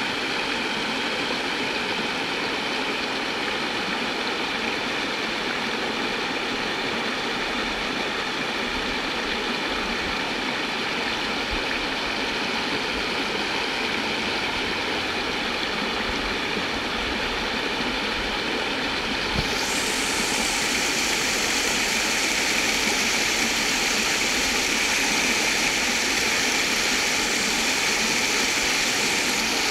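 Creek water rushing over a smooth rock ledge and breaking into small white-water rapids, a steady rushing hiss. About two-thirds of the way through it gets a little louder and brighter.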